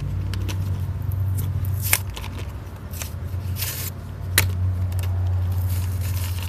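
Cardboard-and-plastic blister pack being handled and picked at: crinkling and scraping, with two sharp plastic clicks, one about two seconds in and one past four seconds. A steady low rumble runs underneath.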